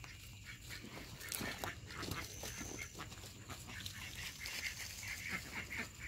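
Short, repeated calls of farmyard fowl, coming thicker toward the end, over faint clicks.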